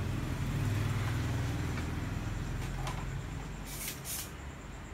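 A low, steady rumble that slowly fades, with a few faint clicks and two short hissy bursts near the end.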